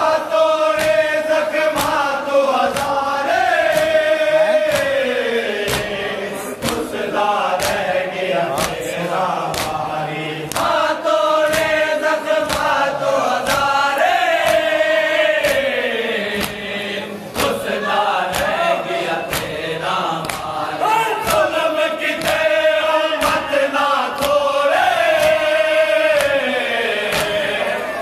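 A group of men chanting a nauha (Muharram mourning lament) together, each phrase falling in pitch and the refrain coming round about every ten seconds. Steady sharp slaps of chest-beating (matam) keep time.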